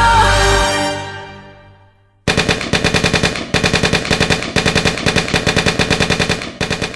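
Background music fades out, then a machine-gun sound effect fires in repeated bursts of about a second each, around ten shots a second, with short pauses between bursts.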